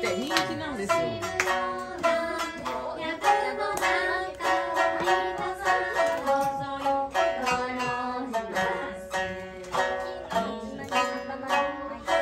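Shamisen plucked in a brisk, continuous run of notes, with a voice singing along in sliding phrases: the live accompaniment to an ozashiki party game.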